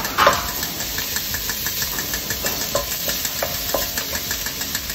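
Chopped garlic sizzling in hot oil in a stainless steel wok, with a wooden spatula scraping and tapping against the pan as it is stirred. There is one louder knock of the spatula on the metal about a quarter second in.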